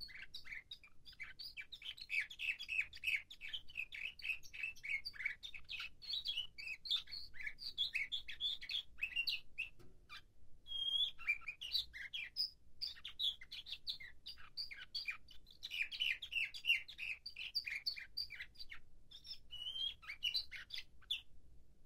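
Nightingale-song canary singing a long, fast song of rapid chirping notes, with a short pause about ten seconds in.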